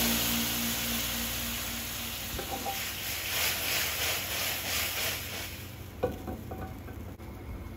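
Water and hot oil sizzling and bubbling in an aluminium pan of tiny fish and herbs as the pan is swirled. The sizzle fades over about five seconds, leaving a few light clicks.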